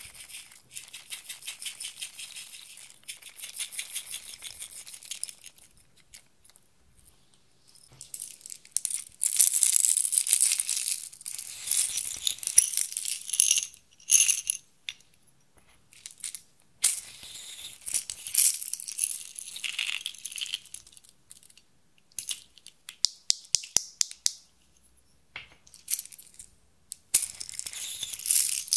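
Small plastic beads, sprinkles and glitter shaken and poured from plastic shaker containers into a glass dish: a dry, high rattle of many tiny pieces in several bursts, with short pauses between them.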